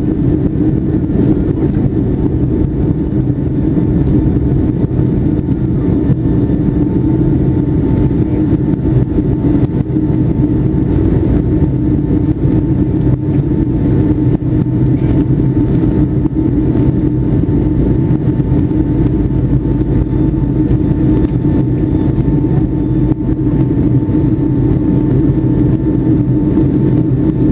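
Steady jet airliner cabin noise: engine drone and rushing air heard from inside the passenger cabin, with a faint steady whine above it.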